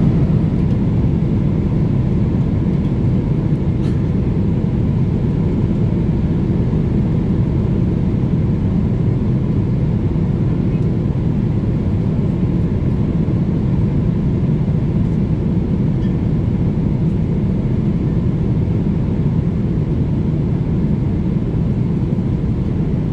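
Steady cabin noise of a Boeing airliner at cruise: the engines and airflow as a low, even roar that does not change.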